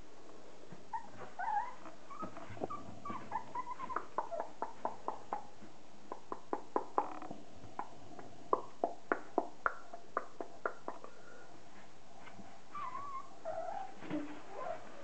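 Border collie puppies about a month old whimpering and yipping, with a quick run of sharp clicks through the middle.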